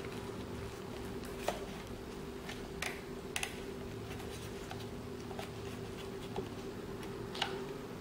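Hands handling a Canon EOS 600D DSLR body: a scattering of faint clicks and taps from fingers on its plastic body and controls, over a steady low hum.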